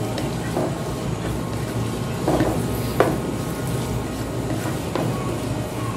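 Sliced onions frying in hot oil in a non-stick pot, a steady sizzle, while a spatula stirs them and knocks against the pot about four times.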